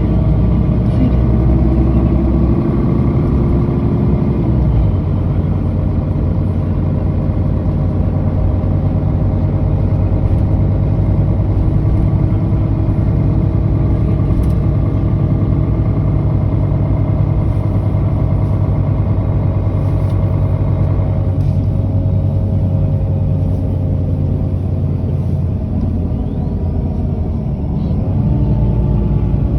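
Mercedes-Benz O530G articulated city bus's diesel engine running steadily. Its tone shifts about four to five seconds in, eases around two-thirds of the way through, and rises briefly near the end.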